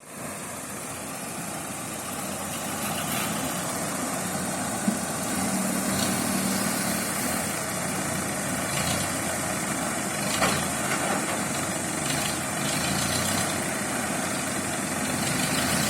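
Heavy engine of a crane or truck running steadily, with two brief sharp knocks about five and ten seconds in.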